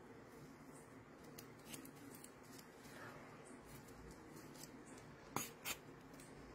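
Faint rustling and light tapping of paper as small rolled paper roses are handled and pressed onto a scrapbook page, with two short sharp clicks close together about five and a half seconds in.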